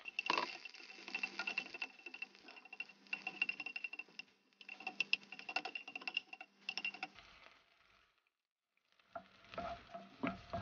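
Wooden spatula stirring garlic cloves in hot oil in a frying pan: light scraping taps over a faint sizzle. The stirring stops for a second or two past the middle, then starts again.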